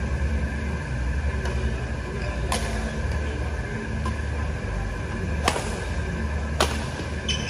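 Badminton rackets striking a shuttlecock during a rally: sharp cracks, one about two and a half seconds in and two louder ones about a second apart near the end, over a steady low hum.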